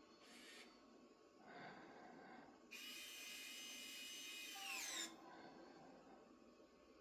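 Roborock Saros Z70 robot vacuum's small electric motor giving a brief hiss, then whining at a steady high pitch for about two seconds before winding down with a falling pitch.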